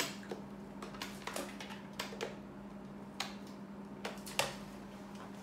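Scattered small clicks and taps of plastic toy capsules and packaging being handled and opened, over a faint steady hum.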